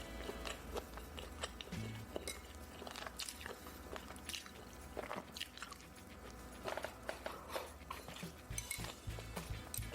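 Close-up chewing and crunching of food: a run of short, irregular clicks and crunches.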